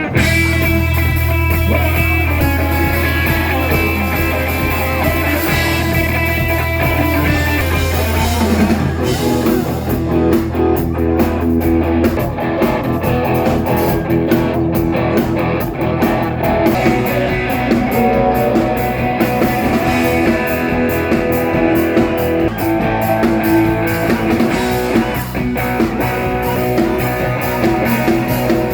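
A live rock band playing, with guitars and a drum kit. A low note is held steadily for about the first twelve seconds before the bass line starts to move.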